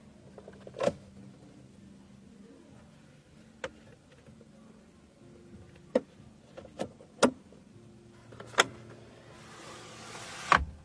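Plastic clicks and knocks from a Zeekr X's rear centre armrest as its sliding cupholder cover and lid are worked by hand: a string of short sharp clicks, a few seconds apart at first, then closer together. Near the end comes a short rush of handling noise and a loud knock as the armrest is folded up.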